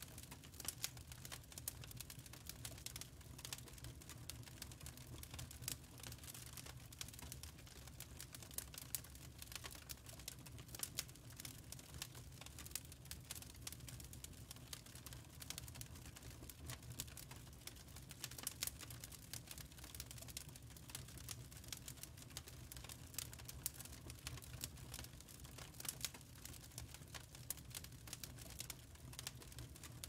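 Wood fire burning in a fireplace, crackling with many small irregular pops and snaps over a low steady rumble.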